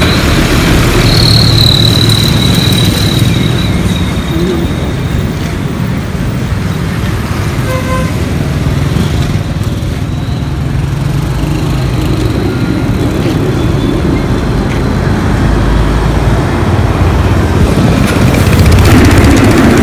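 Street traffic: trucks and motorcycles passing close by with engines running, a thin high tone sounding for a couple of seconds about a second in, and the traffic growing louder near the end.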